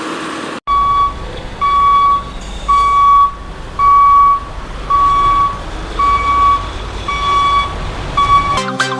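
Vehicle reversing alarm beeping steadily about once a second, each beep a single held tone, over a low engine rumble.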